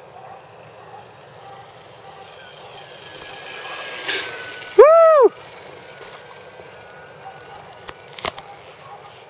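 The electric motor and propeller of a Parkzone Corsair RC plane, swelling as the model passes low overhead. Right after, someone gives a loud, short whoop that rises and falls in pitch. A few sharp clicks come near the end.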